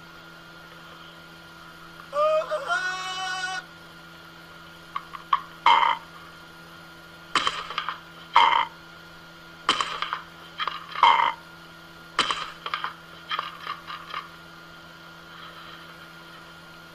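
Amazon parrot squawking in a series of short, harsh calls, with one longer wavering call about two seconds in, over a faint steady hum.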